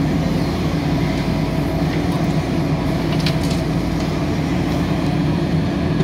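JCB backhoe loader's diesel engine running steadily as the backhoe arm swings a bucket of soil over the tractor trolley and back to the trench, with a few faint light rattles two to three seconds in.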